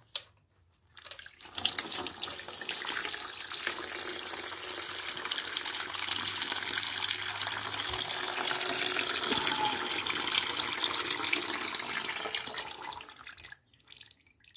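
A steady stream of flushing fluid pouring from the oil drain hole of a Mariner 9.9 four-stroke outboard and splashing into a drain pan, starting about a second in and tapering off shortly before the end. The fluid is washing sludge out of the crankcase, which has no oil filter.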